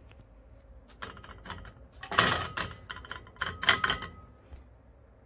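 Paper towels crinkling and rustling as a hand presses them down over fried flaked almonds, blotting off the oil. A few brisk bursts, loudest about two seconds in and again near four seconds.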